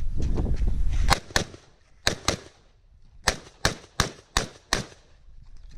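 POF G3 7.62 mm battle rifle firing about nine single shots, each a sharp crack. They come first in quick pairs, then in a steady string of about three shots a second.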